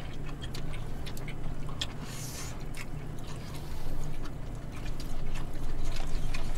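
Eating sounds: chewing, with scattered small clicks of chopsticks and plastic spoons on plastic takeout containers, and a short hiss about two seconds in. A steady low hum runs underneath.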